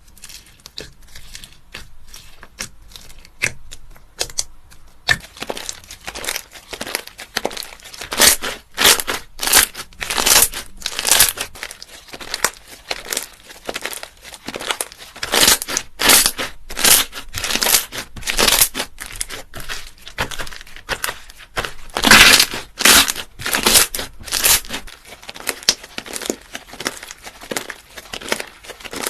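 Slime being squeezed and worked by hand, giving crinkling, crackling sounds in many quick, irregular strokes that grow louder about five seconds in.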